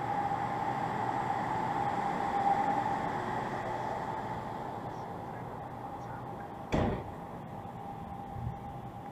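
Street ambience: a steady hum and traffic noise that slowly fade. A single sharp knock comes about two-thirds of the way through, and a softer one follows a little later.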